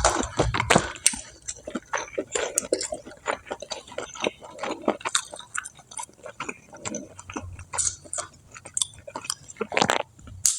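A person chewing and biting crispy fried food, a dense irregular run of crunches and crackles.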